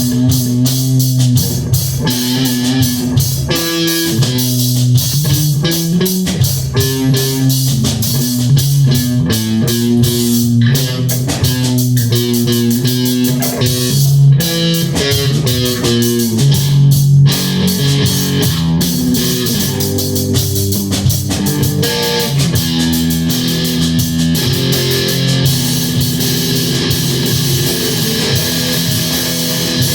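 Guitar and drum kit playing a rock piece together in rehearsal, as an instrumental: a repeating low guitar riff that shifts between notes over steady drumming and cymbals.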